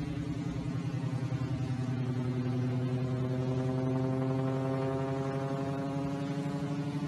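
Engine and propeller of a single-engine propeller plane droning overhead with a fluttering hum, its pitch sinking slightly in the second half as it manoeuvres.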